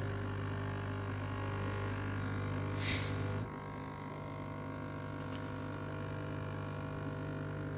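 Nespresso Vertuo coffee machine humming steadily as it spins the capsule to read its barcode before brewing. There is a short hiss about three seconds in, after which the hum gets a little quieter.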